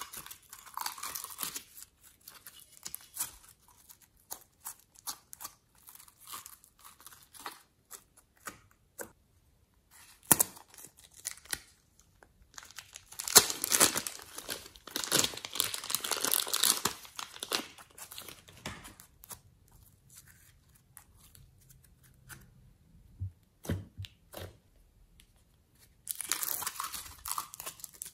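Slime and clay being squeezed and pulled apart by hand close to the microphone, giving many small sticky crackles and pops. Partway through there is a louder stretch of crinkling and tearing as purple clay is peeled off a clear plastic sheet, and another burst near the end as the slime is handled again.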